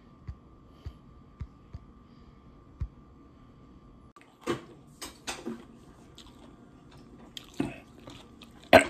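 Quiet room tone with a faint steady hum and a few soft low thumps. After a short break about four seconds in comes a handful of sharp clicks and knocks, the loudest just before the end.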